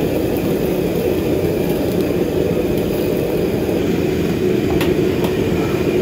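Steady roar of a commercial gas wok burner under a simmering wok. A couple of light clicks come near the end.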